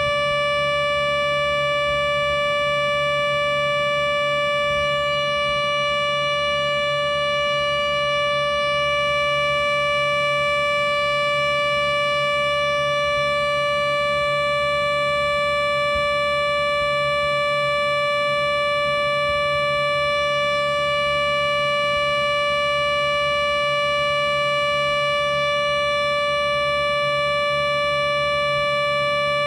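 Synthesized Federal Sign & Signal Thunderbolt 1000 siren made in Audacity, played back through laptop speakers: one steady held tone with its overtones, no rise or fall, over a low hum.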